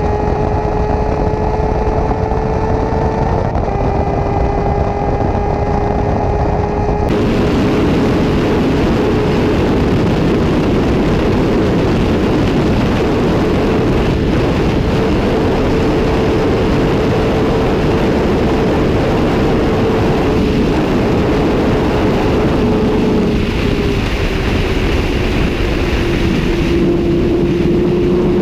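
Suzuki GSX-R 750 SRAD's inline-four engine running hard at high revs, with a brief pitch step about three and a half seconds in. Heavy wind rush on the microphone comes in suddenly about seven seconds in, and the engine pitch sags slowly near the end.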